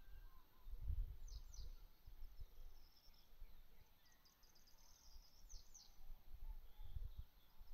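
Faint small-bird chirps and trills, with quick downward-sweeping calls about a second and a half in and again near the end, over gusts of wind rumbling on the microphone.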